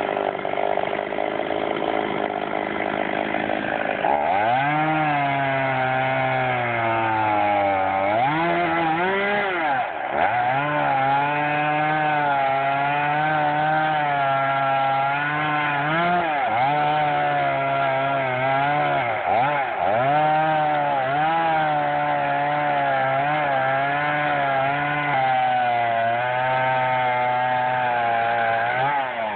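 Chainsaw cutting through wood. About four seconds in the engine settles to a lower, steady pitch as it bogs under load in the cut, dipping sharply and recovering several times as the chain bites, and it picks up again right at the end.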